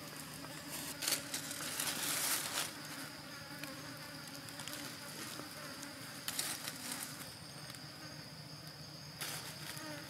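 Insects buzzing steadily in a high, constant drone, with a few short rustling noises from dry leaf litter: about a second in, around six seconds, and near the end.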